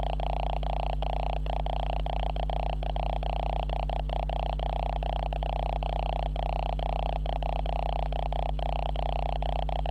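Steady electrical buzz from a camera's faulty audio: a deep hum under a higher, reedy drone, flickering with brief dropouts several times a second.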